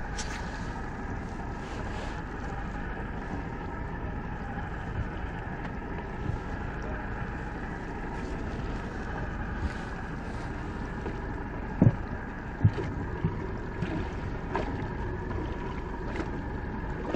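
Small boat's outboard motor running with a steady hum and faint whine, with two sharp knocks on the boat about twelve seconds in.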